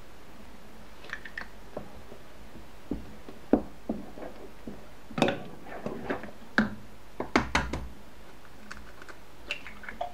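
Irregular sharp knocks and taps from eggs being cracked on a cooking pot and a wooden spoon working in the thick semolina. The loudest cluster comes a little past the middle.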